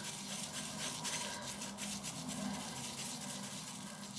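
Boar-and-horsehair mixed shaving brush being swirled and rubbed against shaving soap in its tub to load it: a steady scratchy sound of bristles brushing on the soap.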